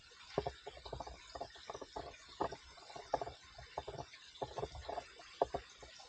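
Footsteps crunching and scuffing irregularly over dry leaf litter and loose stones, several per second, over a faint steady hiss.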